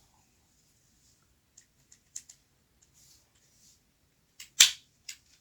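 Light clicks and knocks of a hand-held angle grinder being handled, a few soft ticks followed by a sharp knock about four and a half seconds in and a smaller one just after.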